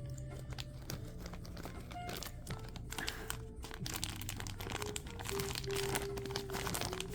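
Packaging of a Labubu blind box crinkling and tearing as it is unwrapped by hand, in a dense run of crackles that thickens in the second half.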